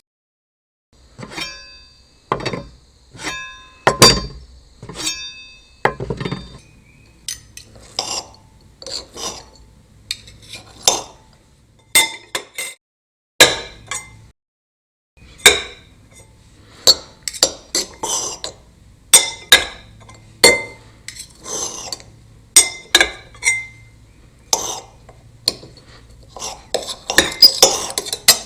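A series of separate knife sound effects: short metallic strikes and scrapes of a blade, one after another. The first five ring on with a clear metallic tone. The rest are short, coming faster near the end.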